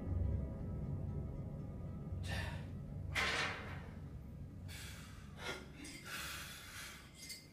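A person's breathing: a run of short, sharp breaths and exhales, the loudest a little past three seconds in. The low end of background music fades away underneath.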